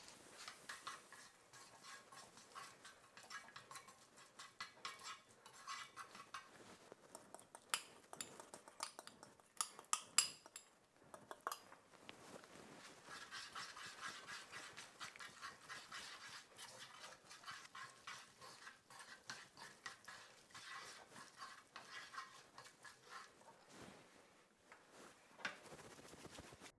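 Wooden chopsticks stirring and tossing spaghetti in a nonstick frying pan, mixing in beaten egg and pecorino to make the carbonara cream. A light crackling hiss runs under it, and the sticks click against the pan, most sharply between about 7 and 12 seconds in.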